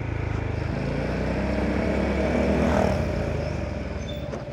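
Honda Forza 300 scooter's single-cylinder engine running on the move. The engine sound builds over the first three seconds, then eases off.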